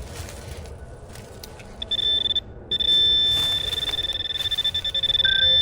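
Handheld metal-detecting pinpointer giving its high, steady alert tone, signalling metal close to the probe tip. The tone starts about two seconds in, stops for a moment, then sounds again and goes on, pulsing quickly in places.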